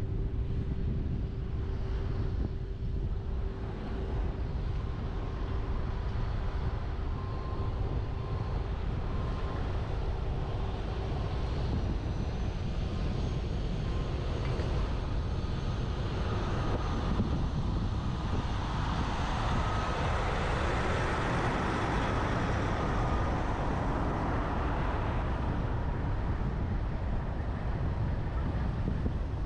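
Steady wind rush and road noise of a truck driving, heard on a microphone mounted on its roof, with a low rumble throughout and a few faint steady tones. The noise swells louder for several seconds about two-thirds of the way through.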